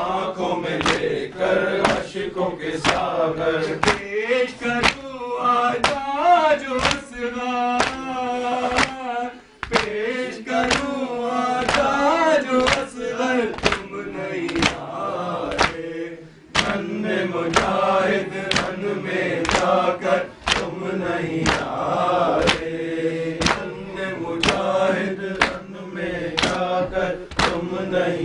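Men chanting a noha, a Shia mourning lament, together, with sharp rhythmic strikes about one and a half times a second that match the chest-beating (matam) that goes with noha recitation. The chanting breaks briefly twice.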